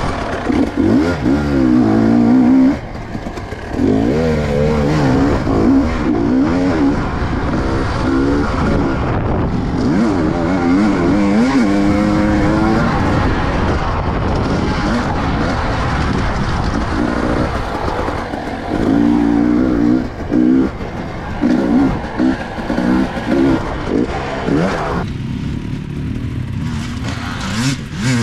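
Enduro motorcycle engine revving hard as the bike is ridden, its pitch rising and falling over and over as the throttle is opened and closed through the gears. Near the end it drops to a lower, quieter running.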